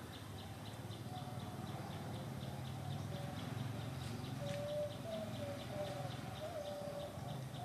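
Outdoor animal ambience: a rapid, even high-pitched pulsing of about five a second, with wavering pitched cooing calls coming in about a second in and growing stronger in the second half.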